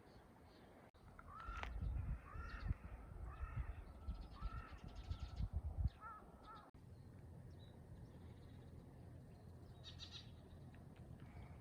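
A crow cawing, about six harsh calls in a row, over a low rumble. The rumble stops with the calls about two-thirds of the way in, leaving a faint steady background.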